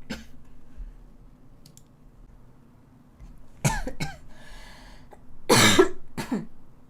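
A woman coughing: a couple of short coughs about three and a half seconds in, then a harder cough about two seconds later. It is a lingering cough that she says won't die down.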